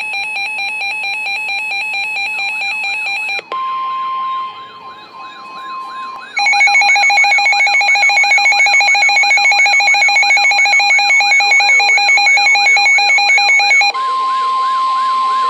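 Electronic emergency alert tones: a harsh buzzing alarm tone for about three and a half seconds, then a steady single-pitch alarm tone with a fast warbling siren over it. The buzzing tone returns at full loudness with the warble from about six seconds in, and the steady tone comes back with a hiss near the end.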